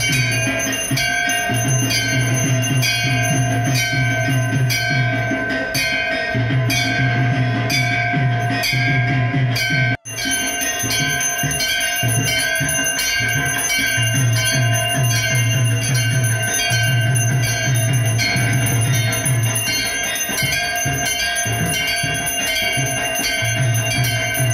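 Temple bells ringing in fast, even strikes over a steady drum beat, as at an aarti. The sound drops out for an instant about ten seconds in.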